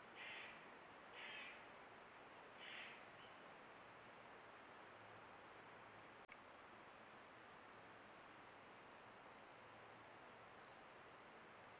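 Near silence with faint insects: a steady high insect drone and three short, soft sounds in the first three seconds. After an abrupt cut about six seconds in, insects chirp faintly in short repeated notes over a steady high drone.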